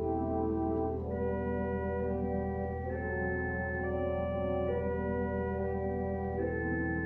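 Church organ playing slow, sustained chords on manuals and pedals, the chords changing every second or two.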